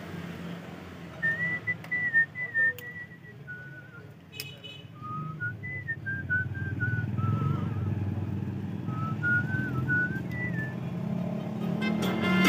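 A person whistling a slow tune in short held notes, over a steady low hum, with a sharp click about four seconds in. Loud music with a beat starts right at the end.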